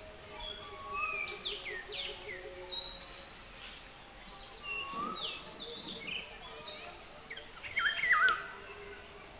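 Several birds chirping and calling, many short falling whistles overlapping, with a louder burst of chirps about eight seconds in.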